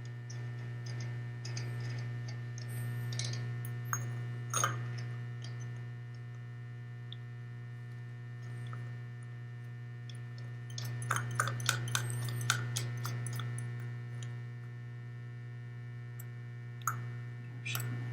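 Steady electrical hum, with scattered clicks and light metal ticks from a socket ratchet and tools working the flywheel nut. There is a quick run of clicks about eleven to thirteen seconds in.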